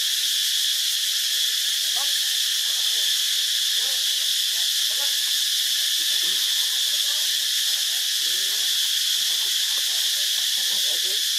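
Steady high-pitched drone of insects, an unbroken hiss that holds at one level throughout, with faint wavering calls or voices underneath.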